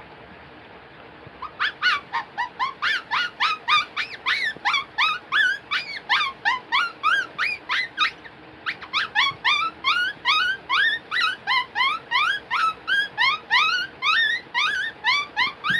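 A man mimicking an animal with his voice: a rapid run of short, high, rising squeaks, about four a second, with a brief pause about eight seconds in.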